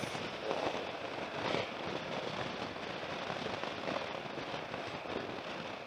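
Wind rushing and crackling over the camera microphone of a moving motorcycle, a steady buffeting rush with road and engine noise underneath.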